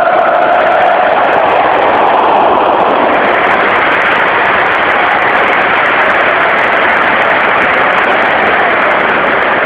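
Large football stadium crowd making a loud, steady roar; a sung chant trails off in the first second.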